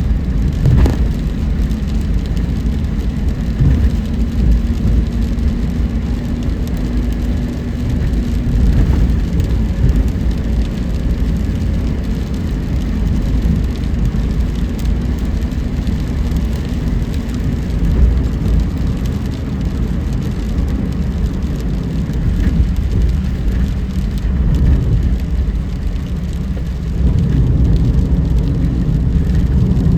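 Car driving on a rain-wet road: a steady low rumble of tyres and engine, louder for the last few seconds.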